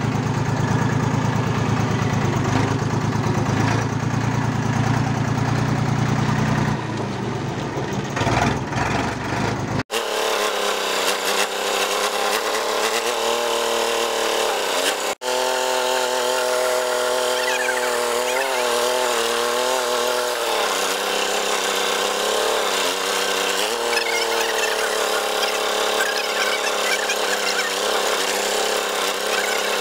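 Escort tractor's diesel engine running steadily as the tractor is driven. About a third of the way in, the sound cuts out briefly twice. After that the engine note wavers up and down.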